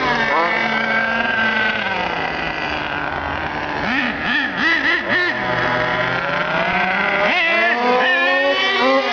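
Two-stroke petrol engine of an FG large-scale RC car being revved. The note eases down, then gives about four quick throttle blips around four to five seconds in, then rises sharply and stays high near the end.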